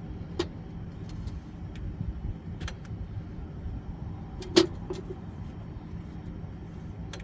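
Scattered light metal clicks and one sharp clank about four and a half seconds in, from hand tools and grinder parts being handled, over a steady low rumble.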